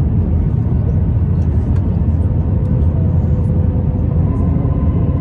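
Steady cabin noise inside an Airbus A321 in flight: a low rumble of engines and airflow heard from a window seat over the wing, with a faint steady whine above it.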